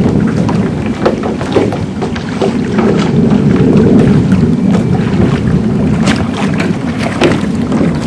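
Continuous rumbling wind and water noise, as on a small boat on open water, with frequent short crackles and splashes.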